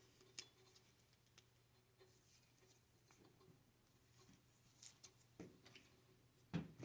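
Near silence with faint, scattered clicks and rustles of hands handling a cable and peeling black electrical tape off it.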